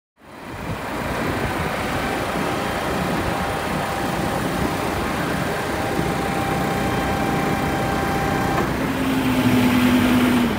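Steady motor-vehicle engine and traffic noise, with a constant hum that drops to a lower pitch about nine seconds in.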